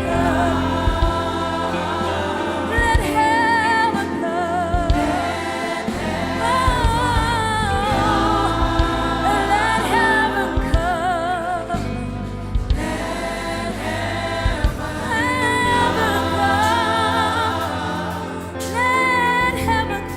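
Gospel praise and worship music: singers holding long notes with vibrato over a band's steady bass.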